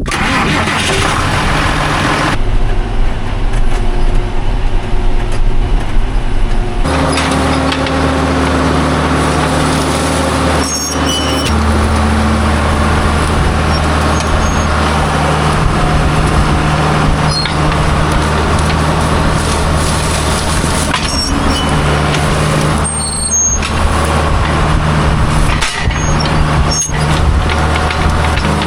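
A farm machine's engine running under load as it handles bales. Its pitch steps up and down a few times as the revs change, with occasional short clanks.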